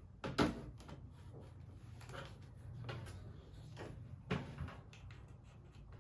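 A series of small knocks and clicks, like things being handled and set down or a drawer or door moving, over a low steady hum. The two loudest knocks come about half a second in and about four seconds later.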